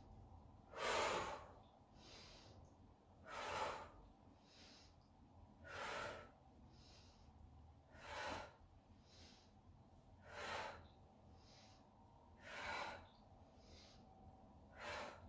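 A woman breathing in time with a repeated side-bend exercise, close on a clip-on microphone. She gives a strong audible exhale about every two and a half seconds, seven in all, with fainter in-breaths between.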